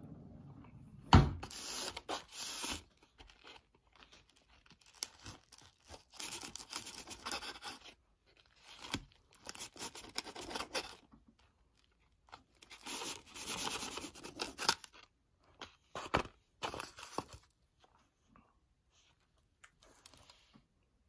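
A table knife sawing through a bread sandwich on a plate, in several bouts of scraping, tearing strokes with pauses between them. There is a sharp knock about a second in, the loudest sound here.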